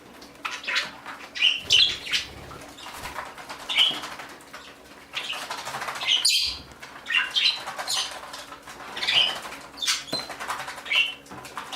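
A flock of budgerigars chirping in short, irregular calls, with wing flaps as birds fly about.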